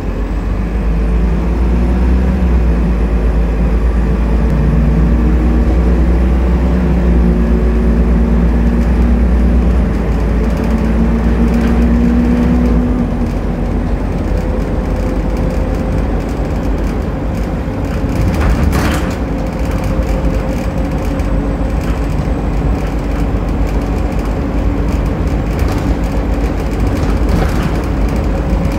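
Optare Solo M950 bus heard from inside the passenger saloon while under way: the diesel engine pulls hard for the first dozen or so seconds with a deep hum and several rising notes, then eases to a lighter steady run with a slowly rising whine. A single knock comes about two-thirds of the way through.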